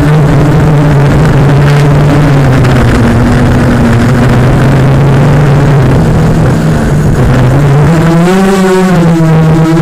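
Racing quadcopter's Cobra 1960kv brushless motors and propellers whining loudly. The pitch drops for a few seconds mid-way and rises with a wavering surge near the end as the throttle changes.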